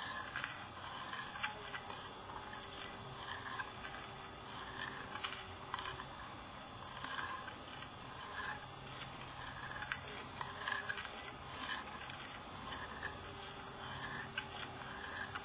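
Metal spoon stirring soup in a ceramic bowl, scraping and clinking against the bowl in a slow repeating rhythm, about once a second.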